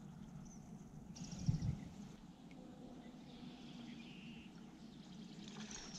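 Quiet open-water ambience. About a second in, a fishing reel is cranked briefly, giving a short run of fine rapid ticks, with a soft thump from rod or kayak handling. There are faint bird calls once or twice.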